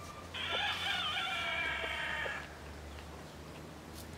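A rooster crows once, a single crow of about two seconds, starting just after the beginning.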